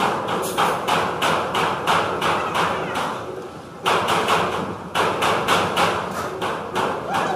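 A steady run of sharp knocks, about three a second, fading briefly a little before halfway and then picking up again.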